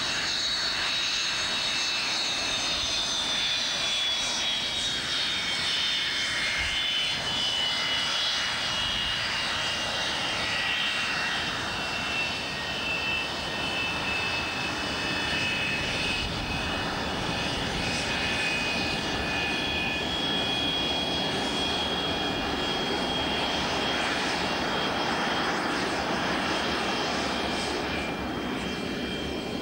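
A taxiing jet trainer's engine running, a high compressor whine that slowly falls in pitch over the first twenty seconds or so and then holds steady, over a steady rushing exhaust noise.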